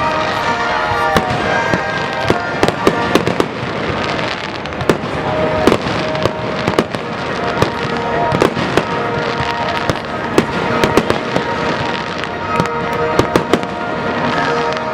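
Fireworks display: many sharp bangs and crackles going off in quick, irregular succession, with music playing under them.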